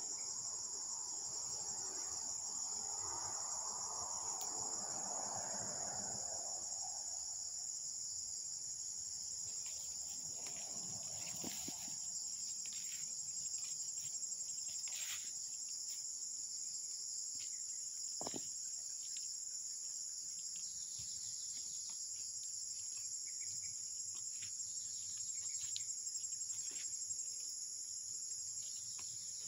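Steady high-pitched chorus of insects trilling, with soft rustling in the first several seconds and a few faint clicks later.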